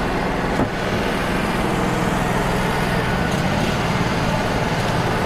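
Wood-Mizer LT35 portable sawmill running steadily under power, its engine and band-saw blade making an even, unbroken drone.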